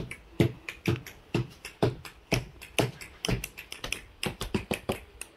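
Small hands slapping the top of an upturned white plastic box, drummed like a drum, giving hollow plastic thuds about twice a second in a steady beat.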